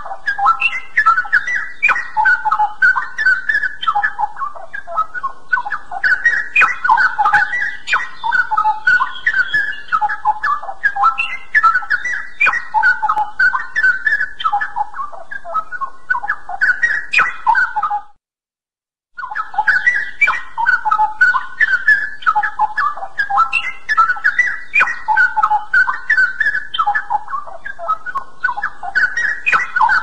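Straw-headed bulbul (cucak rawa) singing loud, rich whistled phrases one after another. The song breaks off completely for about a second roughly two-thirds of the way through, then carries on.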